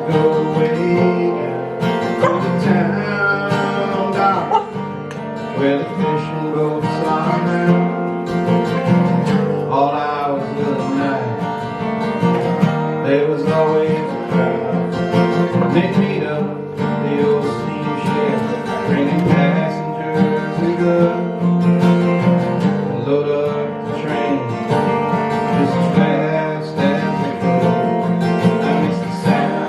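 Live acoustic folk music led by a strummed acoustic guitar, with a wavering melody line over it, in an instrumental passage of the song.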